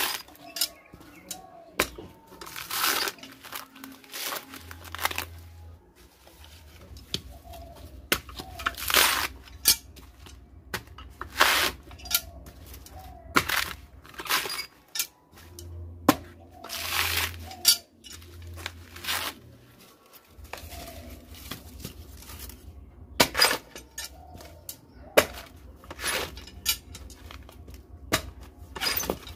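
Coconut husk being pried apart with a hooked iron bar and torn off by hand: irregular sharp cracks and ripping of the tough fibres every second or two, some tears lasting about half a second.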